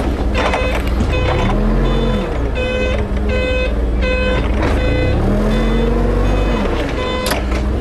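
Propane forklift engine revving up and falling back twice as it reverses, with its reversing alarm beeping over and over. A sharp clank comes near the end.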